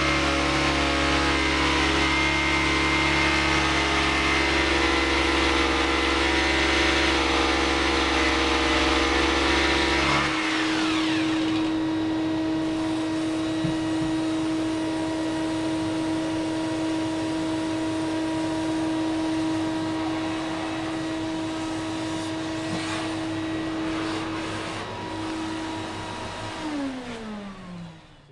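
A hammer drill and a vacuum cleaner running together, a loud steady machine drone with a deep hum. About ten seconds in the drill stops, leaving the vacuum cleaner's steady motor whine. Near the end that whine winds down with a falling pitch as the motor slows to a stop.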